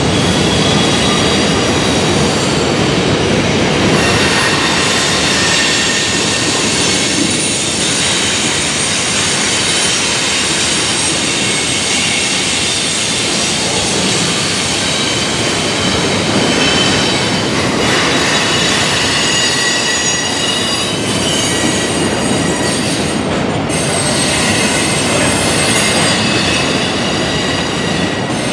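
Double-stack intermodal container train rolling past, the steady rumble of its cars overlaid by high wheel squeal that comes and goes, strongest in the second half.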